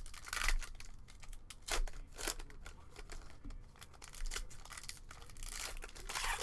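Foil wrapper of a Topps Chrome trading-card pack being crinkled and torn open by hand, in irregular crackles, with a longer stretch of crinkling near the end.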